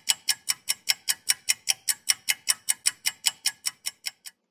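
A ticking clock sound effect used as a countdown timer: fast, even ticks, about five a second, which stop shortly before the end.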